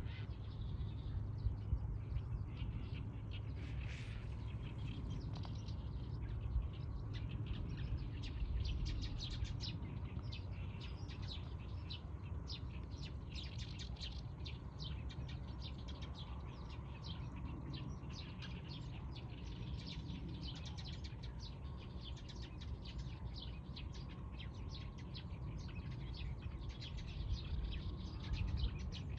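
Small birds chirping in a dense, continuous chorus of quick high calls, over a steady low rumble.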